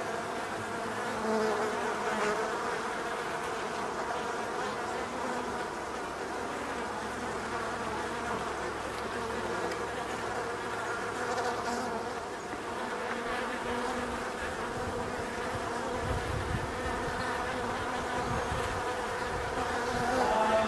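Honeybees buzzing in a steady, continuous hum as many fly in and out of the hive entrance. A low rumble joins in during the last few seconds.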